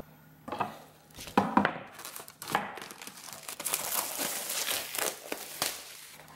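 Clear plastic shrink wrap being torn and peeled off a stretched canvas, crinkling and crackling unevenly, with the sharpest crackles about a second and a half in.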